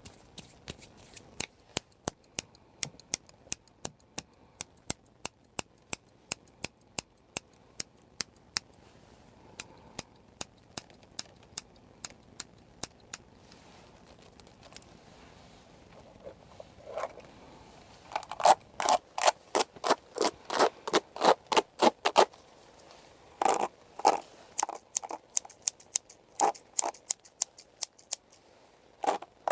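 Haircutting scissors snipping in a steady run of crisp clicks, about two a second. After a short lull they snip faster and louder for a few seconds, then come in another quick cluster.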